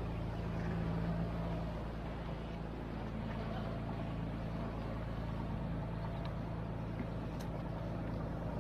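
Steady low engine drone, like a boat motor running, with a few faint clicks.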